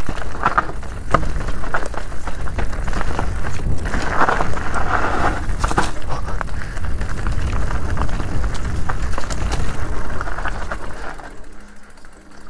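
Specialized Turbo Levo SL e-mountain bike ridden fast down a rough trail: tyres rumbling over roots and rocks, with the chain and frame rattling and knocking over each bump. The noise dies down near the end.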